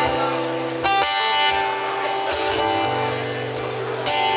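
Two acoustic guitars played together, strumming chords with no singing, with a sharp strum about a second in and another near the end.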